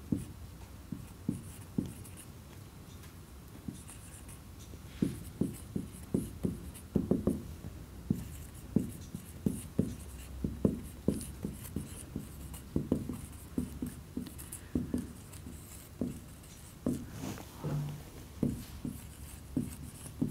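Marker pen writing on a whiteboard: a run of short, irregular strokes and taps as letters and numbers are written, sparse for the first few seconds and then coming thick and fast.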